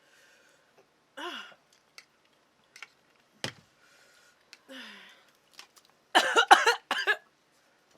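A woman groaning and sighing in pain from the burn of very spicy noodles, with a louder run of wavering moans near the end and a few light clicks in between.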